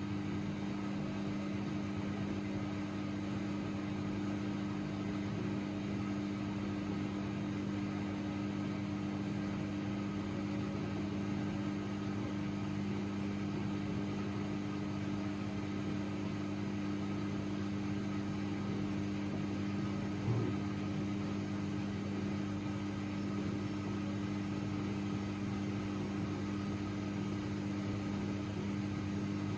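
AEG Lavamat 6610 washing machine running with a steady, even hum that does not rise or fall. One short knock comes about twenty seconds in.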